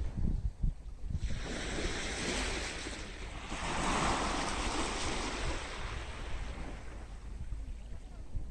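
A sea wave washing up the beach: a rushing hiss that swells about a second in, peaks midway and fades away, with low wind rumble on the microphone at the start.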